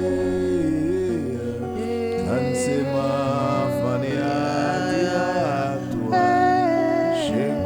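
Slow, soaking-style worship music: long held keyboard chords, with a wordless singing voice sliding between notes over them.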